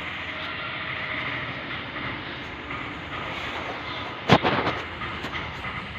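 Steady background noise, with one sharp metallic knock about four seconds in and a few lighter clicks after it, as gearbox parts and a bearing are handled.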